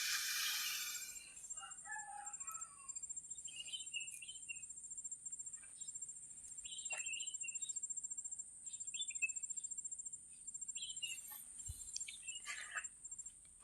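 Faint birds chirping in short calls every couple of seconds over a steady, high-pitched insect trill, with a brief burst of noise at the very start.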